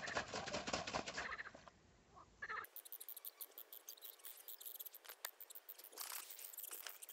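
Frogs croaking in a chorus, a faint rapid pulsing rattle that dips briefly about two seconds in and then carries on.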